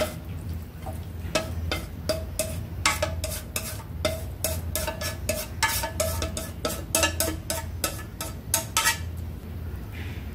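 Spatula scraping and knocking against a stone-coated wok as food is pushed out onto a serving plate: a quick irregular run of clicks and scrapes with a short metallic ring, stopping about nine seconds in. A steady low hum runs underneath.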